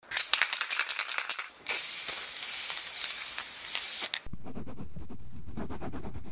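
Chalk-on-chalkboard writing sound effect: a run of quick scratchy strokes, then a steady hiss for about two seconds, then a lower, rougher scraping from about four seconds in.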